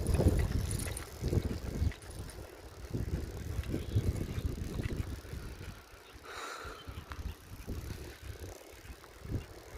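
Riding a bicycle on a paved road: rumbling road and wind noise on the microphone, heaviest in the first two seconds and patchier after, with a short higher hiss about six and a half seconds in.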